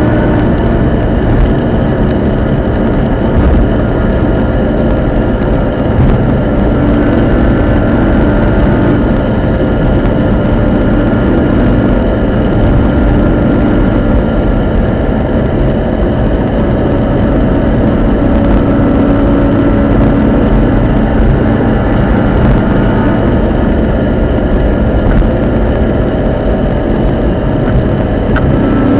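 Subaru Impreza GC8 being driven: steady drivetrain and road noise with a steady whine running through it, the abnormal noise put down to the centre differential.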